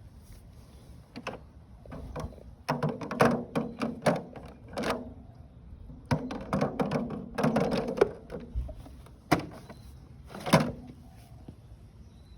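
Hard plastic knocking, clattering and scraping as the housing and filters of a Dolphin robotic pool cleaner are handled for an inspection, in two bursts of clatter followed by two single sharp knocks near the end.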